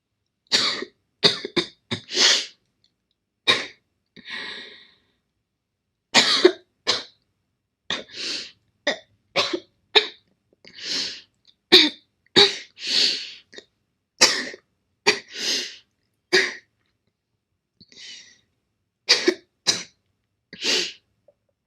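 A girl coughing over and over in short, sharp coughs that come in fits of two to four, with brief pauses and a few quieter breaths between the fits.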